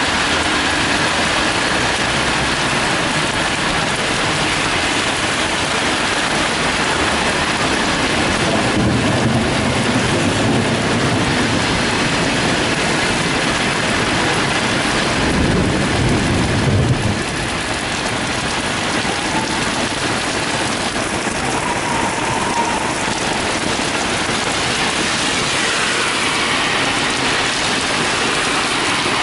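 Heavy rain pouring onto a wet city street and paving: a dense, steady hiss, with car tyres swishing through standing water. A low rumble swells twice in the middle, the second cutting off suddenly.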